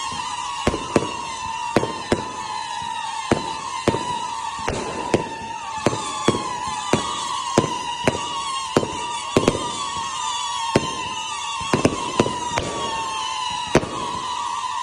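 A 108-shot firework cake firing shot after shot, about two bangs a second, over overlapping whistles that fall slightly in pitch.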